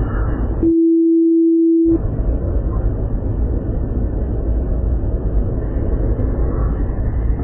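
Steady low rumble of an airliner's engine and cabin noise. About a second in, it cuts out completely for a single steady beep of just over a second, dubbed into the audio, and then the rumble comes back.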